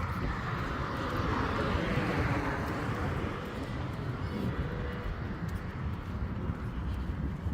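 Steady outdoor traffic noise, with a passing vehicle that swells and fades a couple of seconds in.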